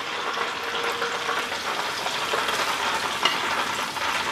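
Hot vegetable oil sizzling steadily as cornmeal-dredged chicken tenders fry, with a few faint clicks of metal tongs.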